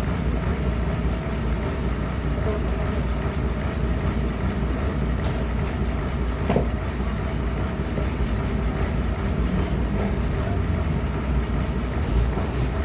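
Sawmill machinery running with a steady low drone, and a single sharp knock about halfway through.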